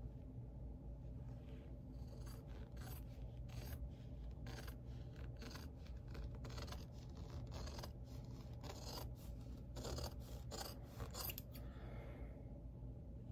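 Scissors snipping through several folded layers of fabric, a run of short crisp cuts with brief pauses between them, and the fabric rustling as it is handled.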